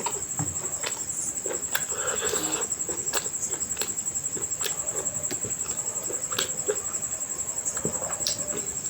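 Close-miked eating sounds: wet chewing and sharp lip smacks of a mouthful of mutton curry and rice, irregular clicks coming every half second or so, over a steady high whine.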